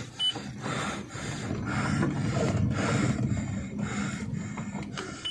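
Rumbling road noise inside a car rolling slowly over a rough dirt track, with a few light knocks and rattles.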